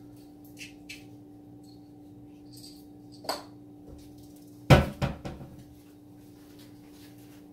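Steady low hum under a few light clicks, a sharper knock a little past three seconds in, then a loud knock followed by a short run of quicker, fading knocks about five seconds in, like hard objects being handled and set down.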